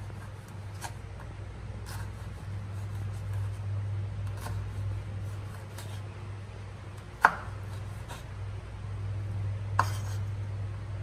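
Kitchen knife slicing a yellow bell pepper into strips on a wooden cutting board: the blade knocks on the board every second or two, with two sharper knocks in the second half, over a steady low hum.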